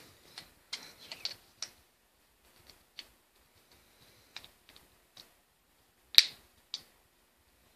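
Small plastic and metal clicks and snaps from a diecast toy monster truck being worked over in the hands. They are scattered and irregular, a cluster in the first two seconds and a sharp louder pair about six seconds in.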